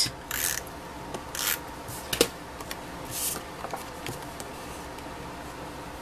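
A handheld tape runner laying adhesive on a cardstock panel: four short passes within the first three and a half seconds, with a sharp click a little after two seconds in.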